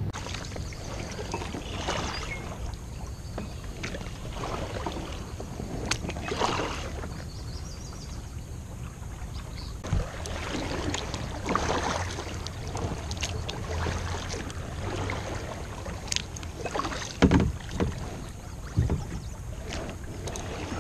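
Kayak paddle strokes dipping and splashing every second or two, with water lapping and slapping against the hull of a red plastic kayak. A few louder sharp knocks and splashes come about three-quarters of the way through.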